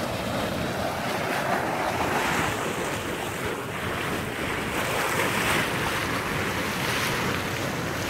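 Boiling geothermal hot spring venting steam, a steady rushing noise with wind on the microphone.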